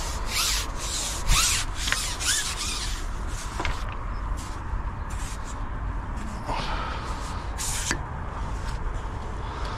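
Short, irregular rubbing and scraping noises, a dozen or so in quick succession, from close-up handling of fishing gear, with a few faint short chirps.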